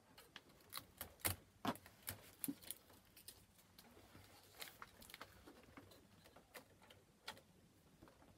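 Faint, irregular clicks and taps of hands handling a plastic inkjet printer, the Epson ET-4750, as its scanner lid is lifted and blue shipping tape is pulled off.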